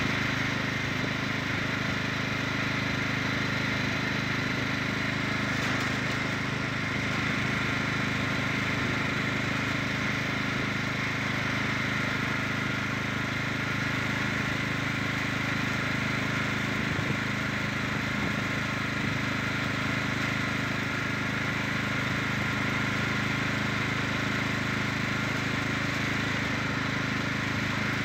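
The small motor of a light vehicle running at one steady speed, with a constant hum over a rushing noise and no change in pitch.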